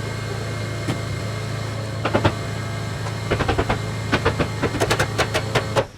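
Construction work over a steady low motor hum: a few sharp knocks about two seconds in, then a rapid run of sharp taps, four or five a second, over the second half.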